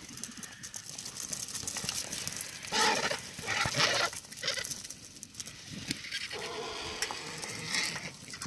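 Griffon vultures crowding in to feed, giving harsh, rasping hisses in several bursts, the loudest about three to four seconds in.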